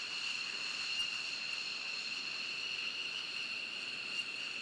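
F-16 Fighting Falcon's jet engine whining steadily at taxi power: a high-pitched, two-tone whine over a hiss.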